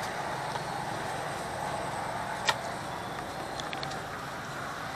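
Steady low background noise with no voices, broken by one short sharp click about two and a half seconds in.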